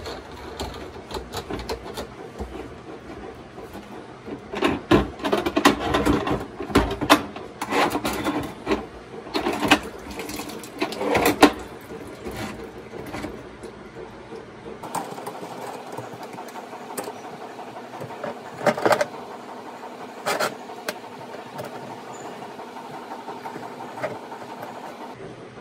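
Hands unscrewing and working loose the slip nuts of a white plastic sink P-trap: a run of plastic clicks, knocks and rattles, busiest in the first half. After that come a few scattered knocks over a steady background hum.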